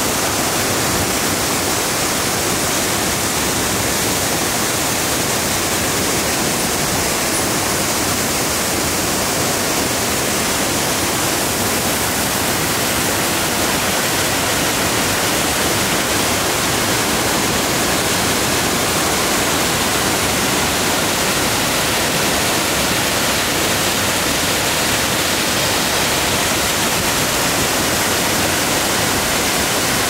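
Waterfall crashing into its plunge pool: a steady, even rush of falling water.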